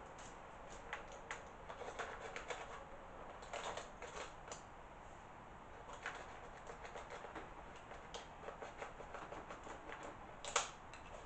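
Faint, irregular ticks and scratches of a hot-wire cutter's needle tip scraping and picking at foam inside a plastic model viaduct, with one sharper click near the end.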